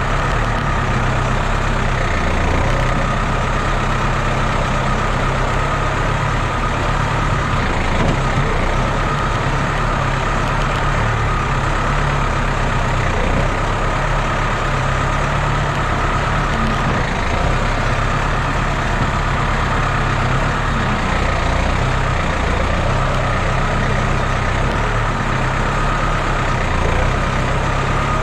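Farm tractor's diesel engine running steadily while its front loader scoops manure and lifts it into a trailer. The engine note shifts a few times as the load changes.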